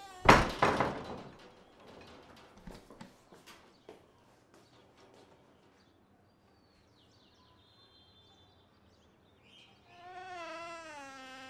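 A wooden front door being opened and shut: a loud bang about a third of a second in that dies away over a second, then a few lighter knocks. Faint bird chirps follow, and a wavering pitched call starts near the end.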